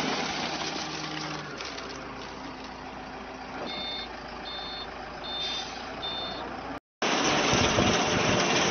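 A heavy vehicle's reversing alarm beeping four times, short high even tones, over steady machinery noise. The sound drops out for a moment near the end and returns as a louder steady rushing noise.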